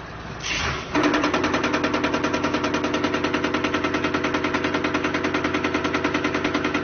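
Vibration test table shaking a strapped-down module of LiFePO4 prismatic cells, a steady machine hum that swells and, about a second in, turns into a fast, even rattle of about ten pulses a second.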